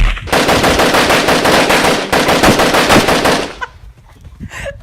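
Airsoft AK-47 rifle firing on full auto: a rapid, loud chatter of shots in two long bursts with a short break about two seconds in, stopping about three and a half seconds in.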